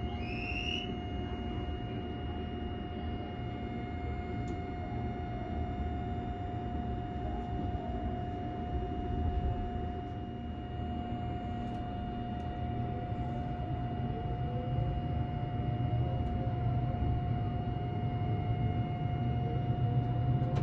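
Tobu Spacia electric limited express heard from inside the cabin: a steady low running rumble with a constant electric whine. In the last third a second whine slowly rises in pitch as the train gathers speed.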